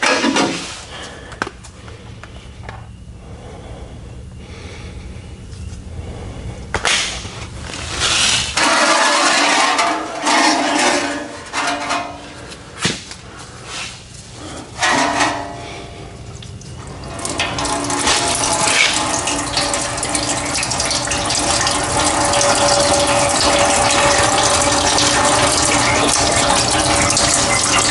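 Knocks and clatter of hands and tools working at the fuel filter, then, past the middle, a steady stream of diesel fuel pouring out of the John Deere 5075E's opened fuel filter. The fuel is free-flowing from the tank because the line has no shut-off.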